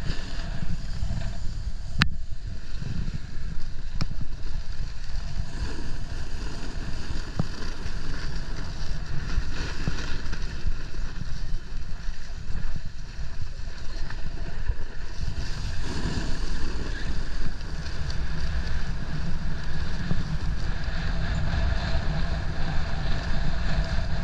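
Wind buffeting the camera microphone while skiing downhill: a steady low rumble with a hiss above it. There are two faint sharp clicks about two and four seconds in.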